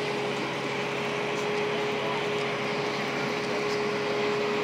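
Tour boat's engine running with a steady hum and one constant tone as the boat comes in to dock.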